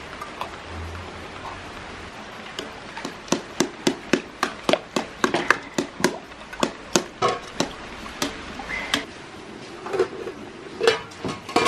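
A quick run of sharp knocks, about three a second, starting a few seconds in and thinning out near the end.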